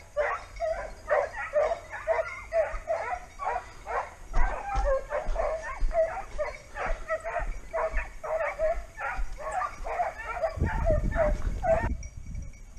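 Hare-hunting hounds giving tongue in a rapid, unbroken run of high yelps, several a second, the sound of a pack running a hare's scent; the cry stops just before the end. A low rumble on the microphone comes in shortly before the dogs fall silent.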